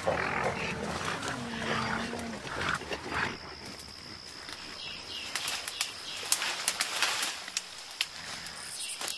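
Mountain gorillas giving low grunting vocalisations in the first few seconds, then quieter rustling and twig snaps in the undergrowth. A thin, steady high tone runs from about three seconds in.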